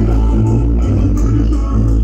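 Loud music played through BP Audio's huge outdoor sound-system speaker stacks, dominated by heavy bass with a repeating bass line.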